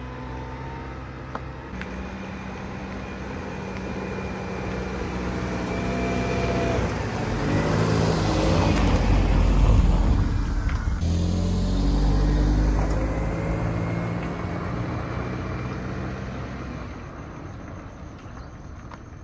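A motor vehicle passing by: engine and tyre noise build up slowly to a peak about ten seconds in, the pitch drops as it passes, then fades away.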